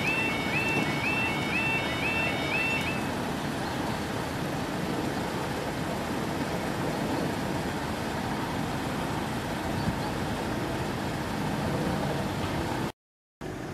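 Level crossing yodel alarm warbling about twice a second while the barriers come down; it stops about three seconds in as the barriers finish lowering. A steady rush of road traffic noise continues, and the sound cuts out briefly near the end.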